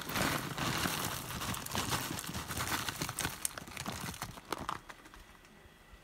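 Thin plastic bag crinkling and rustling as bean sprouts are shaken out of it into a pot of stew. The crackling dies away about five seconds in.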